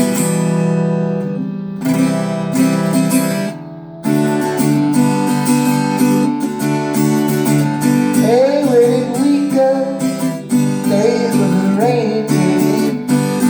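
Baby Taylor small acoustic guitar, freshly strung with Elixir 80/20 bronze strings, strummed in chords with a bright, ringing tone. The playing drops off briefly about three and a half seconds in, then carries on.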